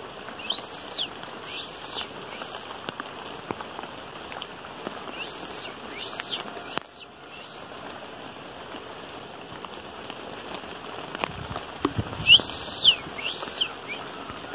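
Steady rain falling, with short high-pitched chirps that rise and fall in pitch, in groups of two or three, near the start, in the middle and loudest near the end.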